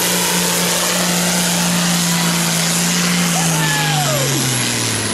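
A hot farm class pulling tractor's diesel engine runs flat out under full load, dragging a weight-transfer sled. About three and a half seconds in, its pitch starts falling as the engine loses speed near the end of the pull.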